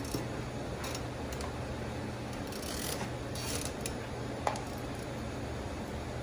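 Grooming scissors snipping the hair on a golden retriever's legs and paws: a few short, crisp cuts, the sharpest about four and a half seconds in, over a steady low hum.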